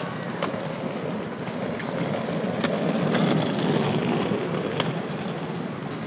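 A vehicle passing on the street, a low rumble that swells about halfway through and then fades, with a few light clicks over it.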